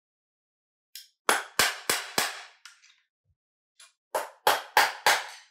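Sharp knocks on an airsoft rifle, in two runs of about five or six at roughly three a second, made while working to get its front handguard off to reach the retaining pin.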